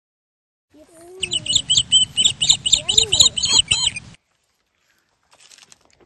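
A rapid run of high chirps, about four a second, lasting about three seconds and starting and stopping abruptly.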